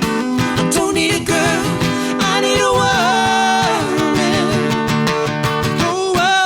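Live acoustic guitar accompanying a voice that sings a wavering, sliding melody line without clear words.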